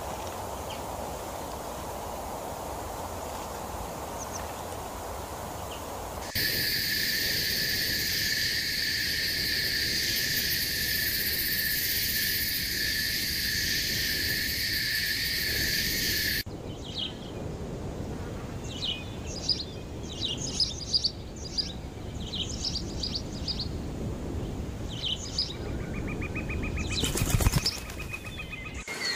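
Nature soundtrack in three cuts: a soft outdoor hiss, then a steady high-pitched buzz, then small birds chirping with many short high calls. A brief loud flutter of wings comes near the end.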